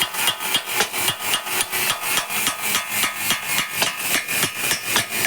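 Rapid, even hammer strikes on metal, about five a second.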